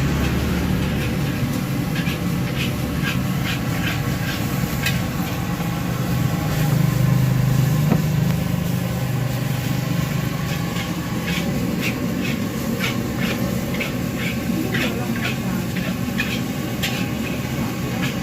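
Metal spatula clanking and scraping against a wok as fried rice is stir-fried, in short irregular strokes about two or three a second over a steady low hum.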